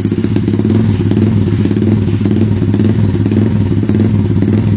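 Yamaha Y15ZR motorcycle's single-cylinder engine idling steadily and loudly through a modified 'Ysuku' exhaust.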